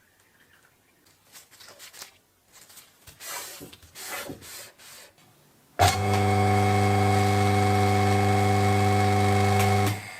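Short scraping and rubbing sounds of parts being handled and worked. About six seconds in, a loud, steady machine hum starts suddenly, holds one even pitch for about four seconds, and cuts off.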